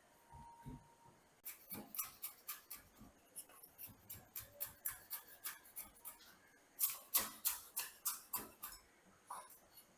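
A run of sharp taps or clicks, about two to three a second, starting about a second and a half in and loudest in the later part.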